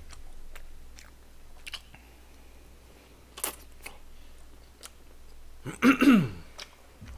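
A person chewing mouthfuls of chewy tteokbokki rice cakes, with scattered small wet mouth clicks. About six seconds in comes a brief hum that falls in pitch.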